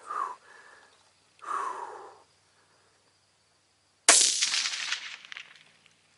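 A single shot from a 17 HMR rimfire rifle about four seconds in: a sharp crack with a ringing tail of about a second and a half. Before it, two short sounds that fall in pitch.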